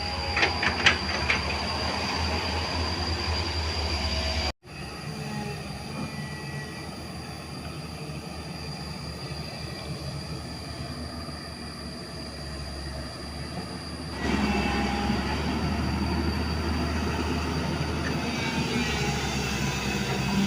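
JCB JS205 tracked excavator working: its diesel engine and hydraulics run steadily under a constant high whine, with a few metallic clanks near the start. The sound breaks off sharply for an instant about four and a half seconds in, runs quieter, then grows louder again about fourteen seconds in.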